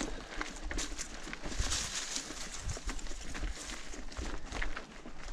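Dry fallen leaves and loose stones crunching on a dirt trail, a steady crackle with many scattered sharp clicks as the bike and rider move over it.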